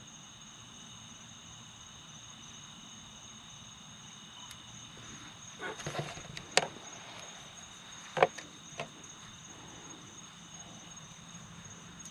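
Crickets chirping steadily in the night, a continuous high-pitched trill, with a few sharp clicks or knocks around the middle.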